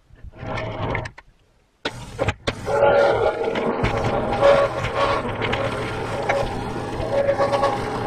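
Norwood Lumberlite ML26 portable band sawmill running, its engine and band blade driving as the sawhead travels along the track. The steady mechanical running comes on suddenly about two seconds in, after a few faint knocks.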